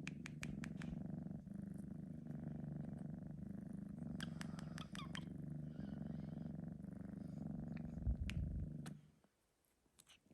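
Three-month-old Sphynx kitten purring steadily, with a few faint clicks mixed in. A low bump comes near the end, and the purring stops about nine seconds in.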